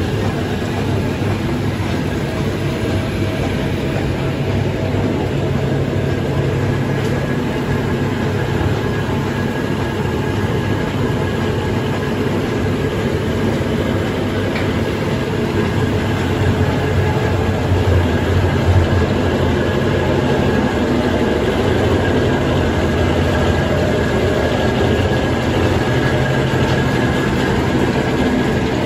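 Sugarcane peel dryer plant running: the rotary drum turning on its support rollers with its feed machinery, a steady mechanical rumble over a low hum with a faint steady whine above it.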